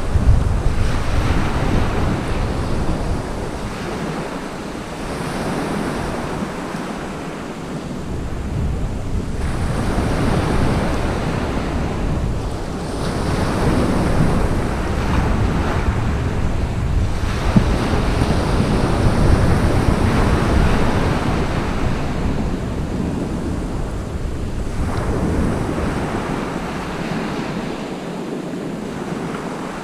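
Surf breaking on a shingle beach, the wash swelling and falling away every few seconds, with gusty wind buffeting the microphone.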